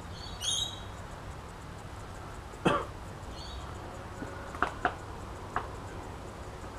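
Scattered short clicks and knocks as hands and tools work on parts in a car's engine bay, the loudest a single sharp sound about a third of the way in. A bird chirps briefly twice, once near the start and once past the middle, over a steady low hum.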